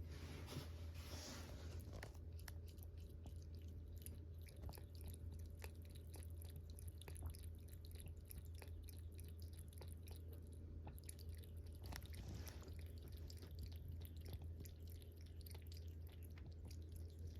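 A cat lapping water: a long run of quick, soft, wet tongue clicks at an uneven pace. A steady low hum runs underneath.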